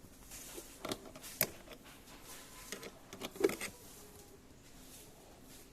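A few sharp clicks and knocks, the loudest about three and a half seconds in.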